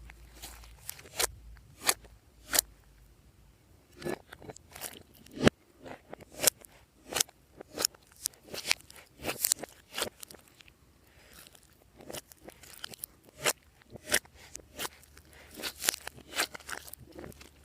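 Glossy slime being squished and worked by hand, giving irregular sharp sticky clicks and crackles with short pauses between handfuls.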